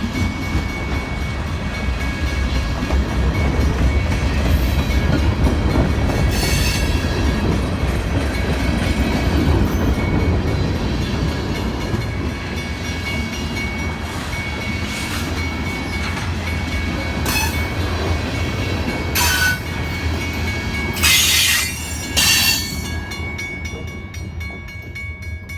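Freight train cars rolling past: a steady heavy rumble of wheels on the rails, with several brief sharp metallic sounds in the second half. The sound eases off over the last few seconds.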